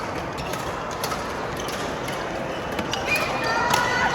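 Badminton rally: sharp clicks of racket strings hitting the shuttlecock every second or so, with shoes squeaking on the court floor near the end, over steady hall noise.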